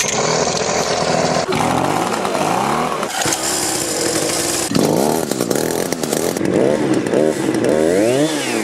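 A power tool running in a long burst, its speed rising and falling again and again.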